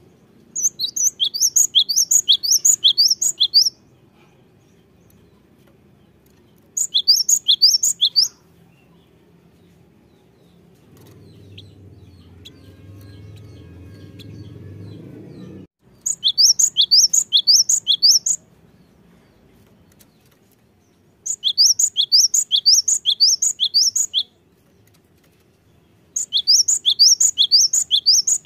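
A cinereous tit (gelatik batu) sings in five loud bursts, each two to three seconds of rapid, repeated high whistled notes, with pauses between them. In the middle, a faint low rumble builds and then cuts off suddenly.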